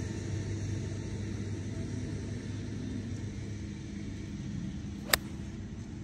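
Golf iron striking the ball off the fairway turf: one sharp crack about five seconds in, over a steady low rumble.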